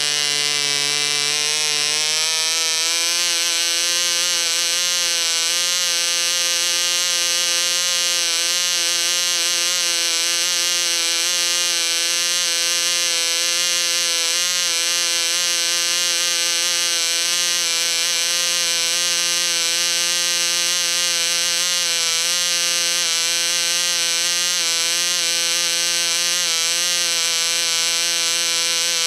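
Small model diesel (compression-ignition) engine running steadily on a test stand with a high, even buzz. It picks up speed about two seconds in, then holds near 10,000 rpm.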